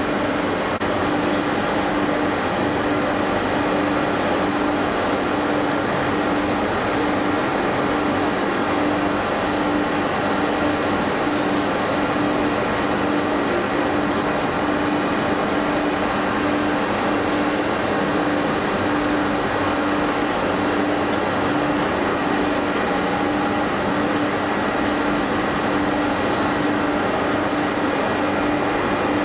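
Steady mechanical hum and whir of running machinery, with one constant low drone, from a CNC gear hobbing machine and its electrical cabinet.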